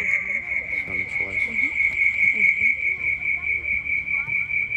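Steady high-pitched whine of audio feedback in a livestream's microphone setup, wavering in loudness several times a second.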